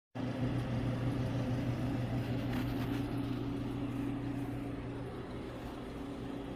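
Steady electric hum of a Caravell ice cream dipping cabinet's refrigeration unit running, a low even drone.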